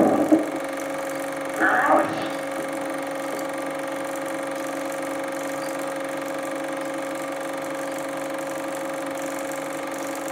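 Super 8 film projector running with a steady hum and hiss. The film soundtrack is quiet here apart from one short sound about two seconds in.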